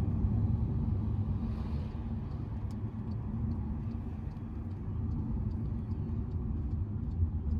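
Steady low rumble of a running vehicle engine and road noise, with faint regular ticking from about two and a half seconds in.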